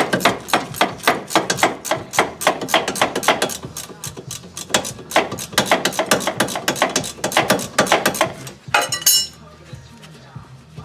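Socket ratchet clicking rapidly, several clicks a second, as it backs out the 17 mm lower caliper slide-pin bolt on a rear disc brake. The clicking stops shortly before the end with a brief rattle.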